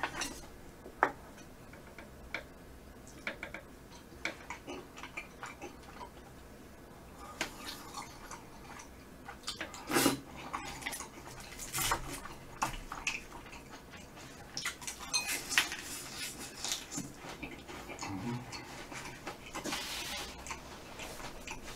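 Eating sounds: chopsticks clicking and tapping against a metal pan of spicy braised chicken, with chewing, in many short scattered clicks and a few sharper knocks.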